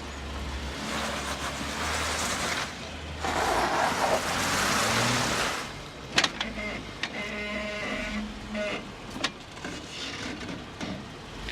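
Jeep Wrangler JK Rubicon engine running at a slow rock crawl, with swells of rushing noise in the first half. Several sharp knocks follow past the middle.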